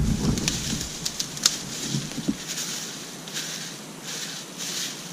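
Fern fronds and undergrowth rustling as they are pulled up and handled, in repeated short bursts, with a few sharp clicks in the first second and a half.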